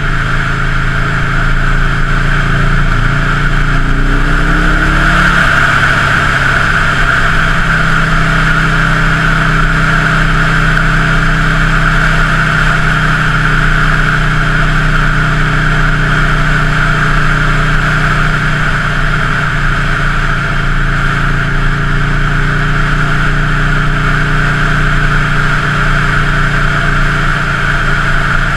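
2003 Buell Lightning XB9's V-twin engine running, its pitch rising about three to five seconds in and then holding steady.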